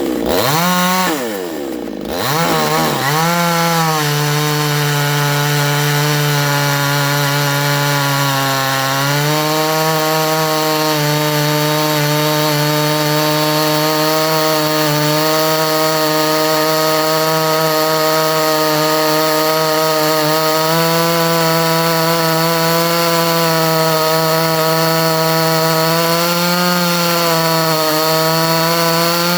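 Chinese 52cc two-stroke chainsaw, fitted with a modified 372 XP carburettor, at full throttle cutting wood. Its pitch swoops down and back up in the first few seconds, then holds steady under the load of the cut, shifting slightly now and then.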